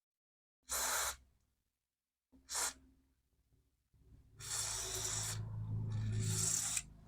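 Aerosol contact cleaner sprayed into chip sockets in hissing bursts: two brief squirts about one and two and a half seconds in, then two longer sprays from about four and a half seconds, with a low hum beneath them.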